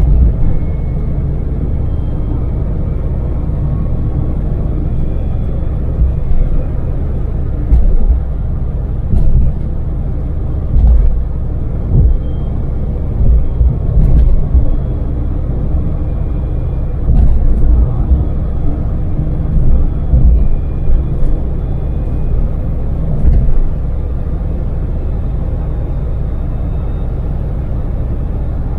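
Daewoo Damas LPG microvan driving at expressway speed: a steady low engine and road rumble. From about eight seconds in, several brief, louder low thumps break through.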